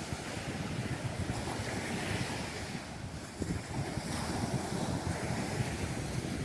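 Ocean surf washing ashore, with strong wind buffeting the microphone.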